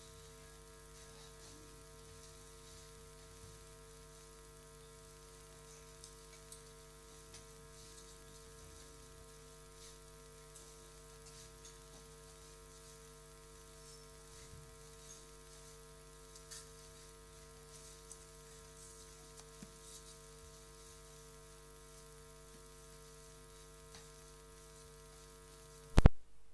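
Steady electrical mains hum made of several steady tones, with faint scattered clicks. Near the end a loud short pop, then the sound cuts off.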